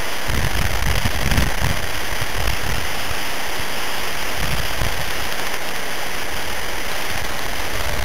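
Steady rushing noise of wind on the microphone, with low buffeting rumbles that swell in the first couple of seconds and again about halfway through.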